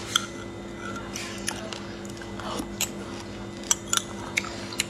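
A metal spoon stirring a thick yogurt drink in a glass mug, tapping the glass with a few light, scattered clinks over a faint steady hum.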